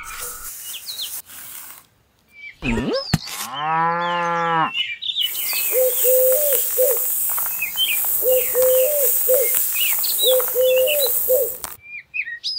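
Farm ambience: birds chirping, one long cow moo about three and a half seconds in, then a steady high hiss with repeated short chirping calls that cuts off shortly before the end.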